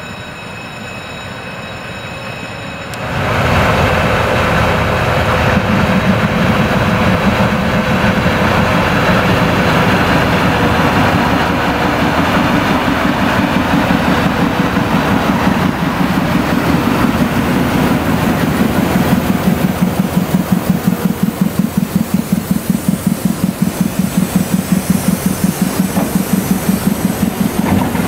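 Diesel locomotive engine running close by, a steady low throb that jumps much louder about three seconds in. In the second half the sound takes on an even, rapid pulsing beat.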